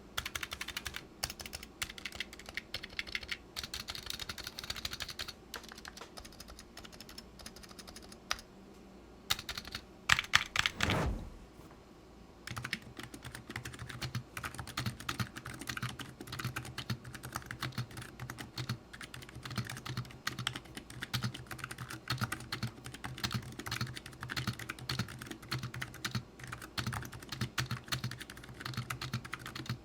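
Fast typing on a Razer Huntsman Mini with linear optical switches: a dense, rapid run of key clacks. About ten seconds in, a brief loud sweep falls in pitch, and after it the typing goes on with the keyboard straight on the desk without a desk mat, each keystroke now carrying a deeper thud.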